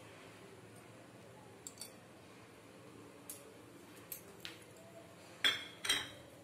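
Scattered light clicks and taps from pan and utensils on a gas stove while mustard oil heats in a non-stick frying pan, over a faint steady hiss; two sharper clicks come close together near the end.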